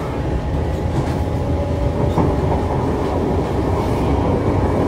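A Siemens C651 MRT train heard from inside the carriage while running: a steady rumble of wheels on the track, with a faint steady motor tone over it.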